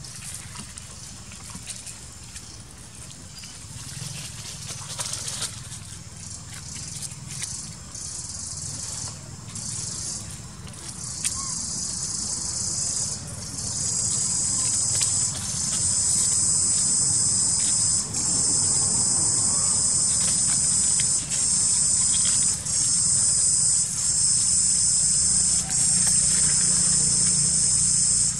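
High, dense insect buzz that swells in over the first dozen seconds, then holds loud and steady, dipping briefly every second or two. Scattered light rustles and soft knocks sound under it while the buzz is still building.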